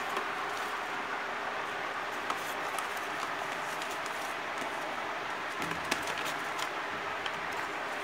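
Steady background hiss with scattered light clicks and scratches, from Indian ringneck parrot chicks moving about on newspaper in a plastic crate.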